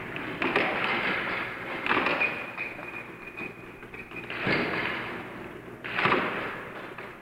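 Air hockey puck being struck by mallets and banging off the table rails: about four sharp clacks at uneven intervals over a steady hiss.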